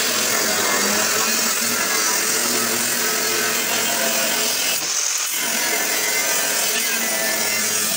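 Angle grinder with a cut-off disc cutting through steel, a steady high whine and grinding with a brief break about five seconds in.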